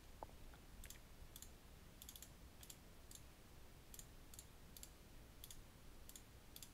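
Faint, sharp clicks, about two to three a second at an uneven pace and some in close pairs, as letters are tapped out one by one on an iPhone's on-screen keyboard.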